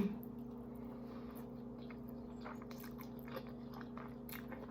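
A person chewing a mouthful of food, with soft, wet mouth clicks and smacks scattered through, over a steady low hum.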